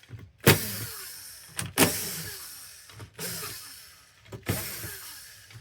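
Electric screwdriver running in short bursts, about four times, each starting sharply and winding down with a falling whine, while screws are backed out of an Xbox Series X during disassembly.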